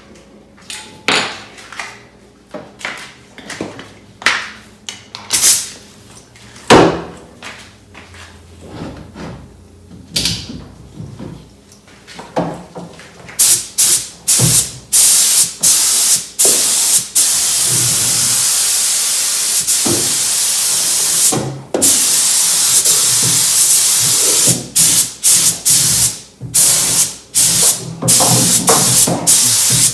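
Scattered knocks and clicks of handling, then a compressed-air spray gun shooting epoxy primer: a loud hiss switched on and off in short bursts and in longer passes of a few seconds, with brief breaks between them.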